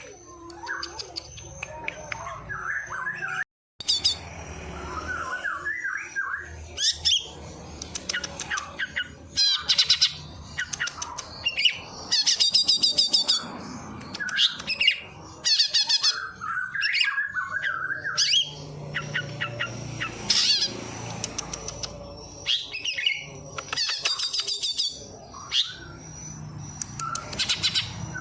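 A songbird singing a long, varied medley of sharp chirps, rapid trills and harsh squawky notes, mimicking the calls of sparrows and prinias. The song breaks off completely for a moment about three and a half seconds in.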